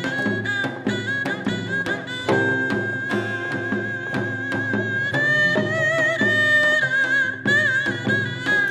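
Korean fusion band of haegeum, geomungo, janggu and guitar playing: a long held, wavering high melody line over quick plucked and drum strokes and a steady low bass.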